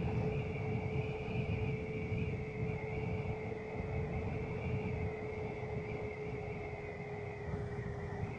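Wind buffeting and road noise from a KTM Duke 200 coasting downhill with its engine dead, with a steady whine over the rumble.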